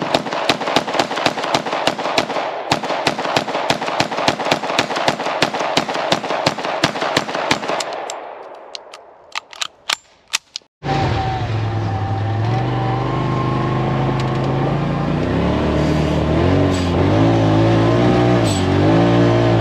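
IWI Uzi Pro 9 mm braced pistol fired rapidly in semi-auto, about five shots a second for some eight seconds, then a few spaced shots. About eleven seconds in the sound cuts to steady background music.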